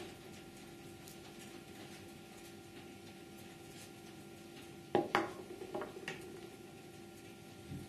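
Hard plastic pieces of an anatomical skull model clicking and knocking together as they are handled, in a quick cluster of knocks about five seconds in and one light tap near the end, over a low steady hum.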